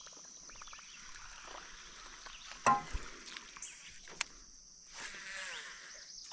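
Steady high-pitched drone of insects in riverside vegetation, with a sharp knock about two and a half seconds in and a lighter click a second and a half later.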